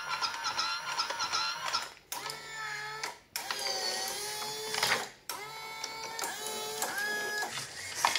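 Converted, fully automatic Powermatic 3 Plus electric cigarette injector running through its filling cycle. Its motors whine in repeated runs whose pitch rises and falls, broken by brief pauses about two, three and five seconds in.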